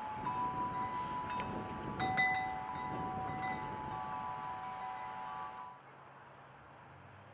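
Chimes ringing: several steady metallic tones at different pitches overlapping and fading in and out, with light clinks. The chiming cuts off suddenly about six seconds in, leaving only a faint low hum.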